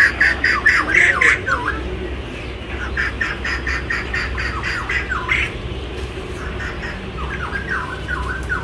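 Birds squawking in quick runs of harsh calls, several to a second, with downward-sliding calls mixed in.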